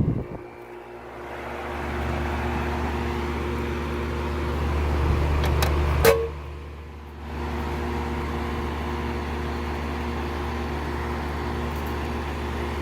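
Lennox Elite Series central air conditioner's outdoor unit starting up. A low, steady hum builds in over the first couple of seconds. A sharp click about six seconds in is followed by a brief dip, and then the unit settles into a steady hum.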